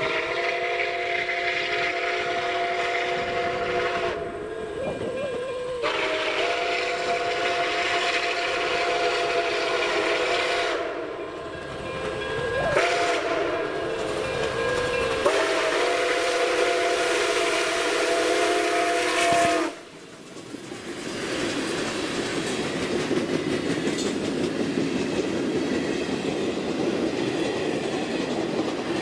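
Nickel Plate Road 765, a 2-8-4 Berkshire steam locomotive, blowing its chime whistle as it passes, in long blasts with a short one between them (long, long, short, long: the grade-crossing signal). The whistle cuts off sharply about 20 seconds in, and the passenger cars roll by with their wheels clattering over the rail joints.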